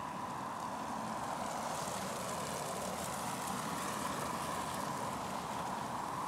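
Cars and SUVs driving past on packed snow in extreme cold. The tyre noise swells about a second and a half in and fades near the end, over a steady city hum with a constant mid-pitched drone.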